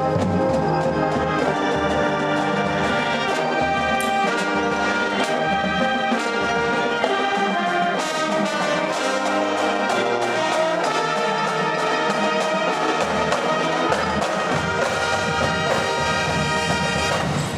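Marching band playing march music: trumpets and trombones carry the tune over steady drum hits.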